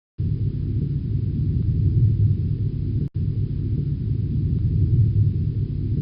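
A steady, deep rumbling noise with no pitch. It starts abruptly, cuts out for an instant about three seconds in, then resumes unchanged, like an edited or looped sound effect.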